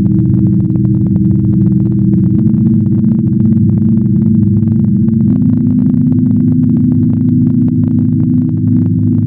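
Synthesized low drone of several steady tones stacked together, with a fast flickering crackle above them; one of the tones steps up slightly in pitch about two seconds in and again about five seconds in. It is a generated sonification presented as the sound of the trans-Neptunian object 2012 VP113.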